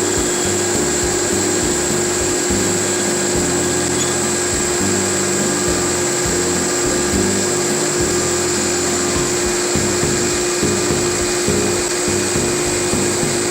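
CNC router spindle running at a steady high speed while carving wood, its constant pitch held over a steady rush of noise.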